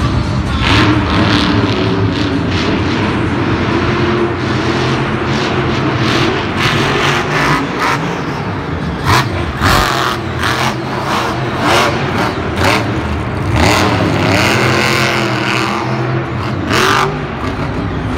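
Monster Mutt monster truck's supercharged, methanol-fuelled V8 engine revving hard, its note rising and falling in repeated surges of throttle.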